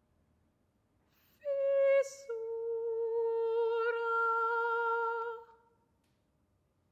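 A woman's unaccompanied voice in contemporary solo vocal music. About a second and a half in, she sings a short held note, then a brief hiss, then a slightly lower note held steadily for about three seconds before it stops.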